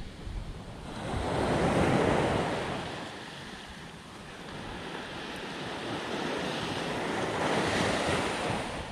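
Small surf breaking and washing up a sandy shore, swelling twice: loudest about two seconds in and again near the end. Wind rumbles on the microphone underneath.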